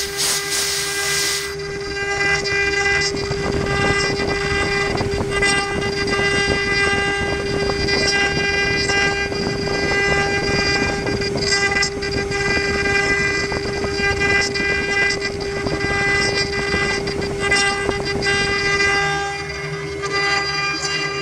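Spindle of an AccTek CNC wood router running at a steady high-pitched whine while its engraving bit carves a relief into a wood block. A rough cutting rasp sits under the whine from about two seconds in until near the end. A loud hiss is heard over the first second or so.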